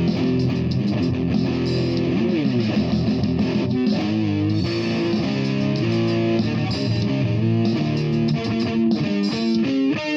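Electric guitar played freestyle over a backing with bass, notes changing quickly, with a bend in pitch about two and a half seconds in.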